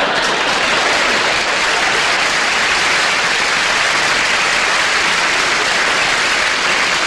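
Studio audience applauding steadily after a comedy punchline.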